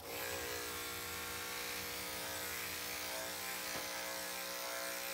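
Electric dog-grooming clipper switched on at the start and running with a steady hum as it trims the hair on the top of a Maltese's head.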